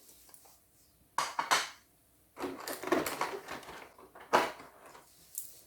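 Small plastic dollhouse furniture pieces knocking and clicking against each other and the table as they are handled and set down, in a few short clusters.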